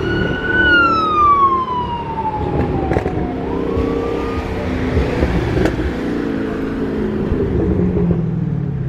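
An emergency-vehicle siren wailing, its pitch falling over the first few seconds and then starting to rise again, over the steady low rumble of car engines in traffic.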